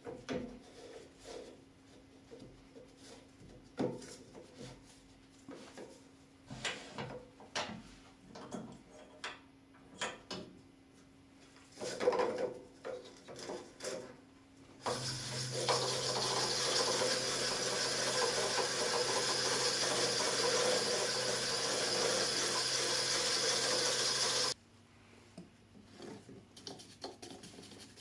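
Light clicks and knocks of a carved wooden ball being handled and fitted onto a wood lathe's chuck and tailstock. About 15 s in, the lathe runs with the ball mounted, a loud, steady noise with a low hum under it, which cuts off abruptly some nine seconds later.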